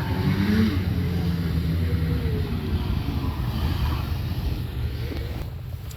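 Snowmobile engines running past, their pitch rising and falling, fading away toward the end.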